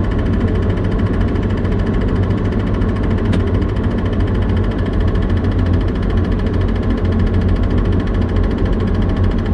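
Liebherr LTM 1250-5.1 mobile crane's diesel engine running steadily, heard from inside the operator's cab, with one faint click about three seconds in.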